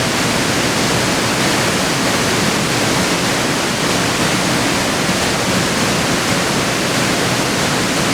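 A waterfall pouring steadily: an even, unbroken rush of falling water.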